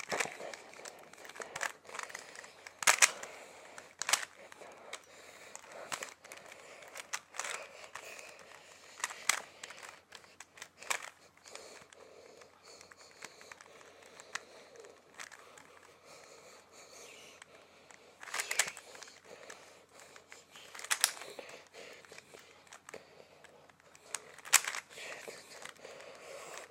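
A Rubik's Cube being turned by hand: irregular clicking and rattling of the plastic layers, in short flurries with pauses between.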